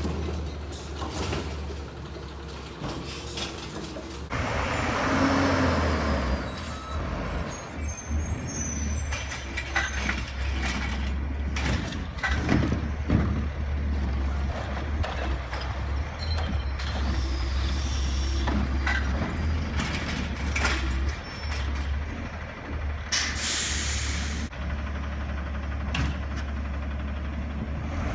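Garbage truck engines running at low speed, with hisses of air brakes; the sharpest hiss comes about 23 seconds in.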